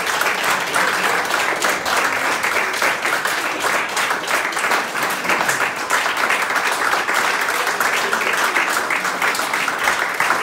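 A group of people applauding, many hands clapping together in steady, continuous applause.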